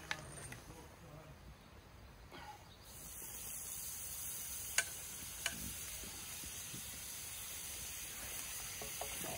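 Steaks laid into a hot frying pan start sizzling suddenly about three seconds in, then keep up a steady frying hiss, with two sharp clicks a couple of seconds later.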